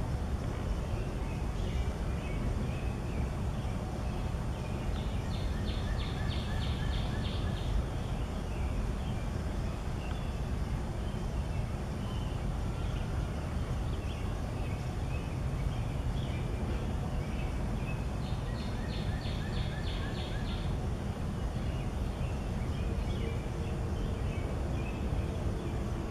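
Outdoor ambience with a steady low rumble and scattered songbird chirps. Twice, about five seconds in and again about eighteen seconds in, a bird sings a quick run of repeated notes lasting two to three seconds.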